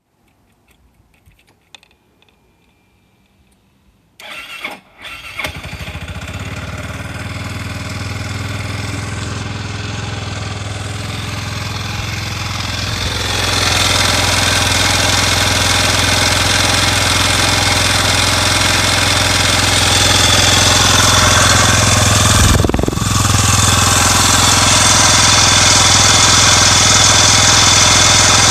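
Suzuki Skywave scooter engine started: a few faint clicks, a brief crank about four seconds in, and the engine catches and idles steadily. From about halfway it gets louder and harsher with a rattly edge and dips briefly near the end. It is the abnormal noise the owner is asking about.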